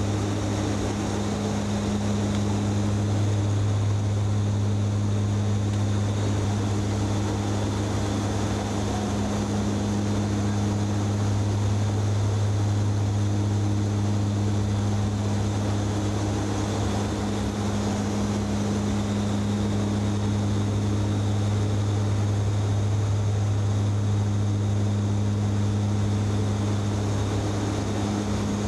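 Aircraft engines droning steadily in level flight, heard from inside the cockpit: an even low hum with a second tone an octave above it over a constant rush of noise.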